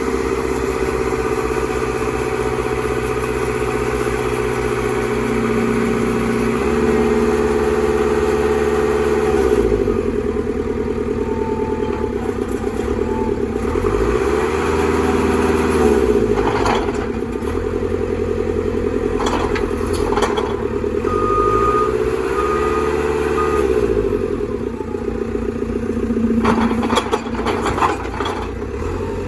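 A 2007 JCB 3CX backhoe loader's four-cylinder diesel engine running, its revs dropping and rising again several times as under changing load, with a few knocks in the second half.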